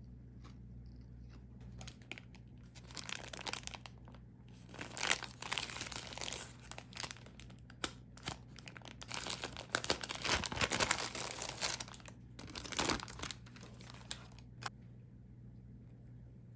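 Paper wrapper of a steamed pork bun crinkling and tearing as hands unfold and peel it open, rustling on and off for about twelve seconds and stopping near the end.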